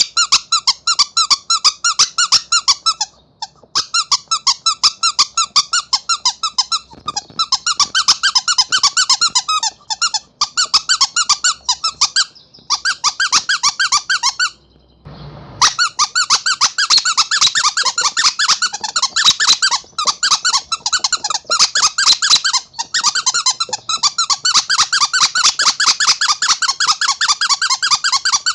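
Rubber monkey squeaky toy being squeezed over and over: quick high squeaks, several a second, in runs broken by short pauses.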